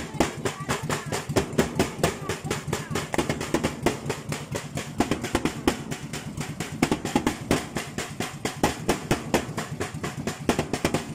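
Steady rhythmic knocking, about four sharp beats a second, with voices in the background.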